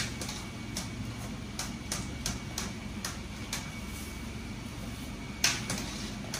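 Metal noodle strainer and chopsticks clicking and tapping against a steaming noodle-boiling pot, a run of light clicks about two or three a second with one louder clack near the end, over a steady low kitchen hum.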